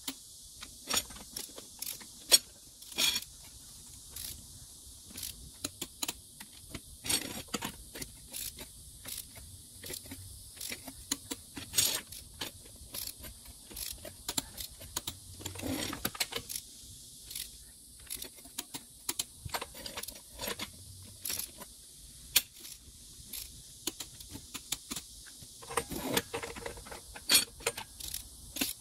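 A long torque wrench and socket working the steel lug nuts on a motorhome's aluminium rear wheel, giving irregular sharp metallic clicks and short runs of rapid ratcheting as the nuts are tightened one after another.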